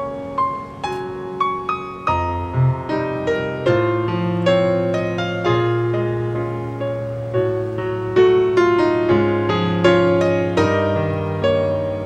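Background piano music, a gentle run of single notes over held low notes.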